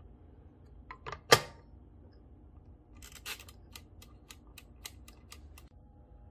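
Pink Kitchera waffle maker being set: its plastic lid shuts with a loud clack a little over a second in, then its front dial is turned with a row of about a dozen clicks, roughly four a second. A faint steady hum starts near the end.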